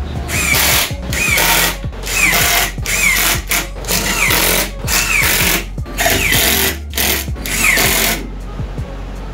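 Cordless drill-driver driving screws through steel mounting tabs into an OSB panel, in a string of short bursts, its motor whine rising and falling with each trigger pull.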